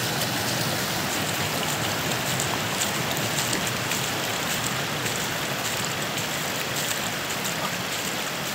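Steady hiss of water with faint pattering throughout.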